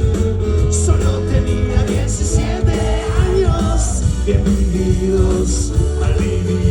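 Live rock and roll band playing, a loud, steady mix of music.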